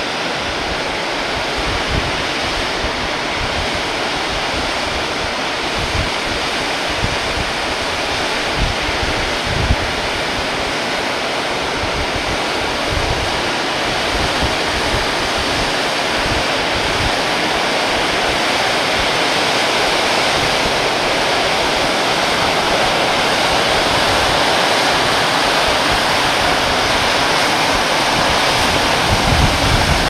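Tidal bore of the Sélune River advancing over the sand flats: a steady noise of turbulent breaking water and air bubbles trapped in the bore front, growing gradually louder as the bore approaches. Wind buffets the microphone.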